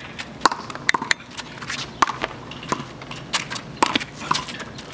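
Small rubber handball bouncing off concrete pavement and a brick wall during a rally: a string of sharp, irregularly spaced smacks, some with a short hollow ring.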